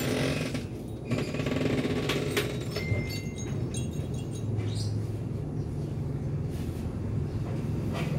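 A low, steady motor rumble, louder from about halfway through, with scattered clicks and a short high beep about three seconds in.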